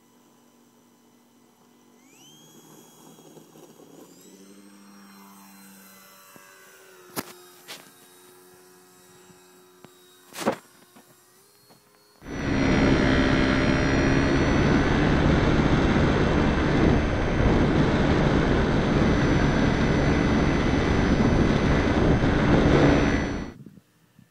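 Radio-controlled model airplane's motor running, its pitch rising about two seconds in, with two sharp clicks. About halfway through, a much louder steady rushing noise starts suddenly, covers it, and cuts off suddenly near the end.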